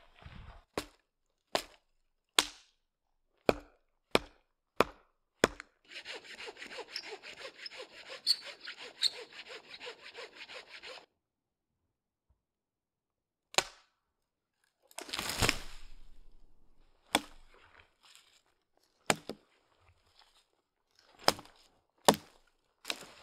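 Hand saw cutting firewood: a fast, even run of saw strokes for about five seconds, with sharp single wooden knocks and snaps before and after. A longer, louder crunch comes about fifteen seconds in.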